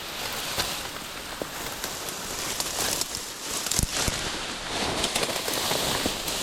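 Dense undergrowth rustling and crackling steadily as a hiker pushes through it on foot, with many small snaps and one sharper knock about four seconds in.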